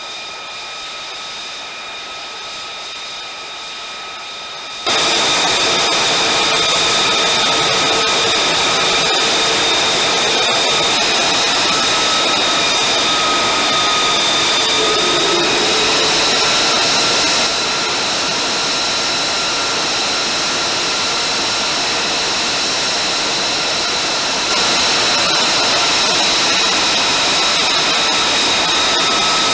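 F-35A's Pratt & Whitney F135 turbofan running on the ground: a steady rush of jet noise with a high whine of several held tones on top. It jumps much louder about five seconds in and shifts level twice more later.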